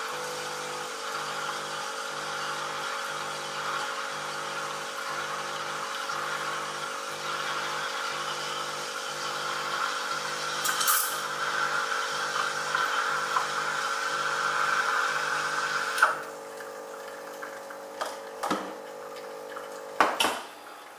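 Milk being steamed with the steam wand of a WPM Welhome Pro KD-270S espresso machine: a steady hiss that grows a little louder, with a low hum pulsing about once a second underneath. The steam cuts off sharply about three-quarters of the way through, followed by a few knocks of the metal milk pitcher being handled and set down.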